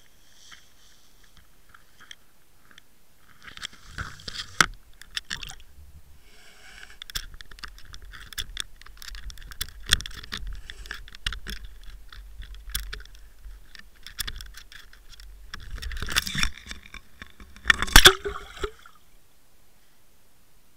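Irregular knocking, clicking and scraping on a Water Wolf underwater camera's housing as the rig is jerked and tumbles in the water, heard through the sealed housing with a low rumble under it. The loudest knocks come about four and a half seconds in and again near the end.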